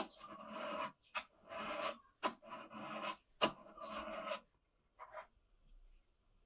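A flat file pushed across the metal sole of a Kakuri hobby trimming plane to flatten it: about four scraping strokes, each under a second, with a sharp click between strokes as the file is set back down. The filing stops about four and a half seconds in, with one short scrape after.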